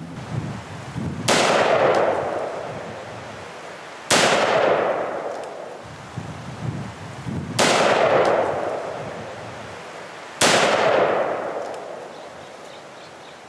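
M4 carbine (.223) firing four single shots about three seconds apart, each sharp crack followed by an echo that dies away over about two seconds.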